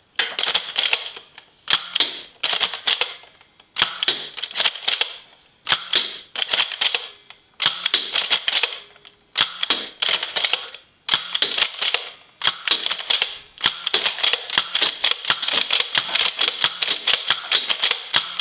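Toy foam-dart blaster firing at a window: bursts of rapid plastic clacks a second or two long, separated by short pauses, running together into a near-continuous rattle for the last six seconds.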